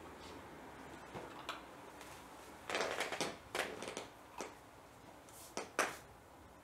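A Nova Scotia Duck Tolling Retriever puppy shifting and gnawing on her padded dog bed: a run of short rustling, scraping noises starting a little under three seconds in, with two more close together near the end.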